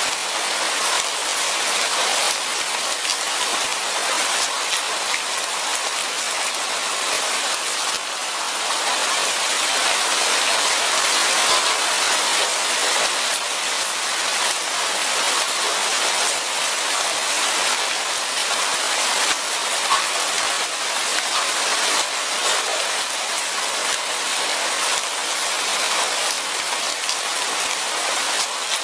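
Light rain falling steadily: a dense, even hiss made up of countless small drop ticks.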